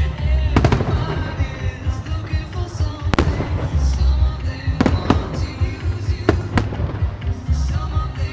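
Aerial fireworks bursting: a string of sharp bangs, several in quick pairs, over a continuous low rumble, with music playing alongside.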